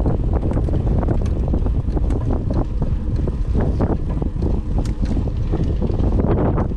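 Wind buffeting the microphone on a moving mountain bike: a loud, steady low rumble, with frequent short knocks and rattles from the bike over rough trail.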